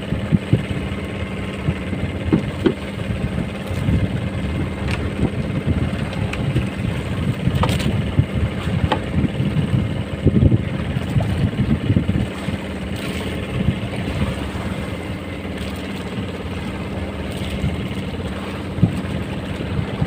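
A fishing boat's engine running steadily, with wind gusting against the microphone.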